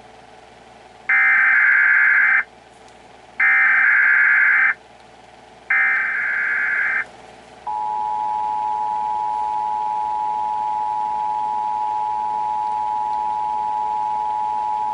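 Emergency Alert System alert signal: three short bursts of buzzing digital header tones, each a little over a second long, then the steady two-tone attention signal starting about halfway in. This is the sequence that opens an EAS warning before the spoken message.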